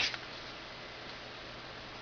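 The tail end of a spoken word, then a steady low hiss of background room tone.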